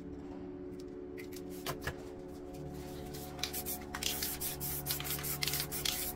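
Aerosol spray paint can hissing in short, uneven spurts, starting about four seconds in, with a few light clicks before it. Soft ambient music plays underneath.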